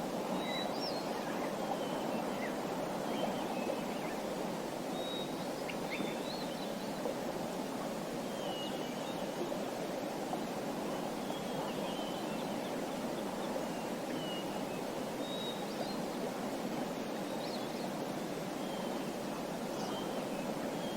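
Small birds chirping in short scattered calls over a steady rushing background like running water.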